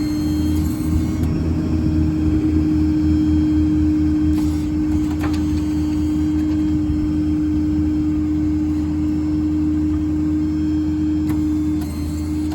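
Stellar 7621 truck-mounted hydraulic crane running, its hydraulic pump and valves giving a steady whine over the truck's running 6.7 Power Stroke diesel as the boom is worked down. The sound holds steady and drops a little near the end.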